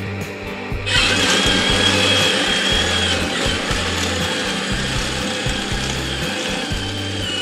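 RC bulldozer's electric drive motors and gearbox whining, starting about a second in with a steady high tone. A low bass line of music plays underneath.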